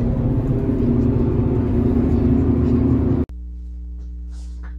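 Car cabin noise while driving at road speed: a steady low rumble of road and engine noise that cuts off abruptly a little over three seconds in, replaced by a quieter steady low hum of held tones.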